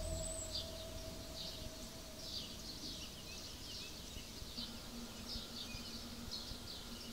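Woodland ambience of small birds chirping: short high, falling chirps about once or twice a second over a faint hiss. The tail of a music track fades out in the first second.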